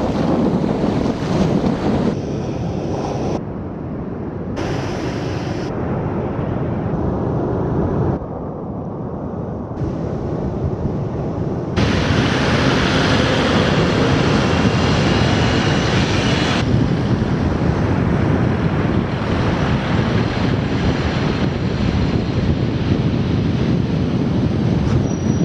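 Wind buffeting the microphone over the wash of surf on a beach, the sound changing abruptly several times.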